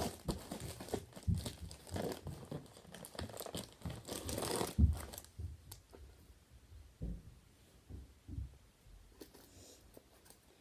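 Cardboard box and its packaging being pulled and torn open by hand: irregular crinkling and tearing, with a sharp knock about five seconds in, then quieter handling with a few soft knocks.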